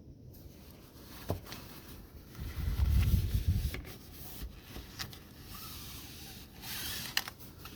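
A cloth towel rubbing and wiping along a window frame, with a few small clicks and knocks. About three seconds in comes a louder low rumble of handling, and near the end a short burst of rubbing.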